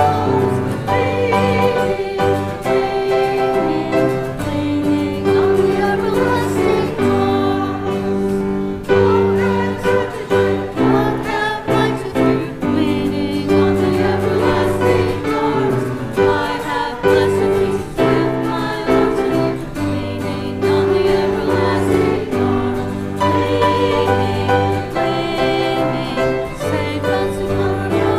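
Church congregation and choir singing a hymn together with instrumental accompaniment, the music continuous through held chords.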